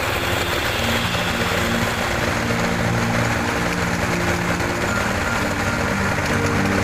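Colt Diesel 100 PS engine running steadily, powering a well-drilling rig.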